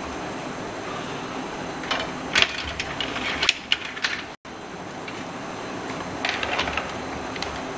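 Plastic clicks and rattles of cables and connectors being handled inside an open computer case, in two clusters, over a steady hiss, with a brief dropout just past the middle.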